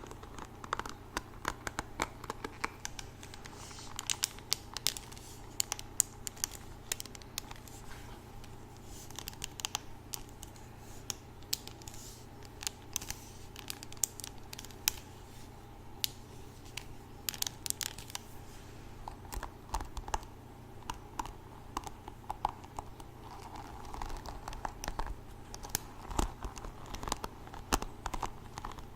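Close crinkling and scratching handling sounds: an irregular patter of sharp little ticks and crackles.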